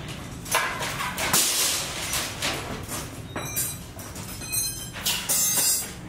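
Steel reinforcing bars (rebar) clattering and scraping against each other as they are carried and laid on a concrete floor, in a run of irregular metallic clanks.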